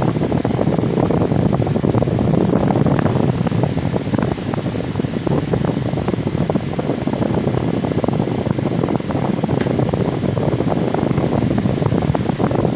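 Small 9-inch table fan running with a loud, steady rush of air.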